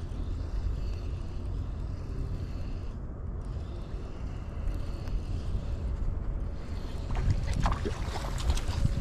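Steady low rush of river water with wind rumbling on the microphone, and a cluster of sharp crackling sounds about seven seconds in.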